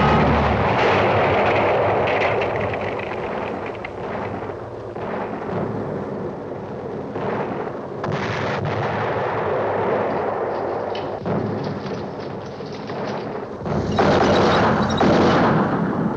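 Battle sound effects from a war film: a continuous din of gunfire and explosions, growing louder near the end.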